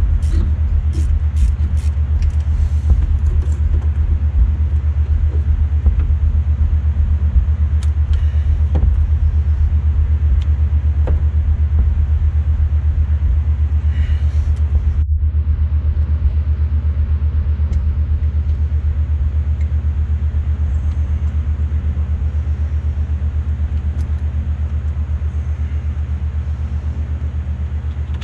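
Steady low machine rumble with a fast, even pulse, easing off slightly toward the end, with a few light clicks over it.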